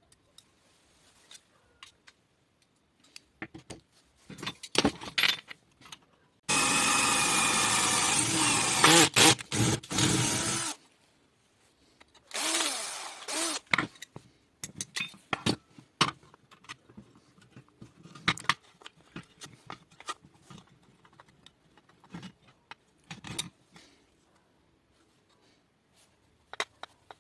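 Clicks and knocks of tools and parts being handled. A power tool runs at steady speed for about four seconds, starting and stopping abruptly, then runs again more briefly and winds down.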